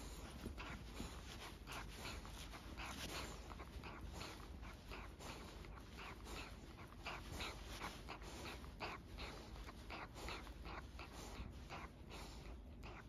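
Pumi dog breathing in quick, short, noisy breaths, about three a second, in an even rhythm.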